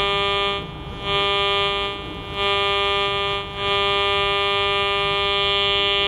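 Metal detector's buzzy target tone, switching on and off four times as the coil is held over a buried coin. The last stretch runs about two and a half seconds. It is the detector signalling a coin that it reads as a quarter.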